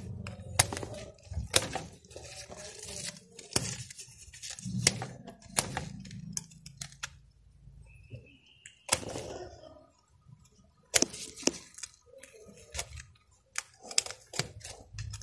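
Cloth work gloves rubbing and brushing right against the microphone, with scattered sharp clicks and light metallic clinks as the hands work wires and a small metal tool.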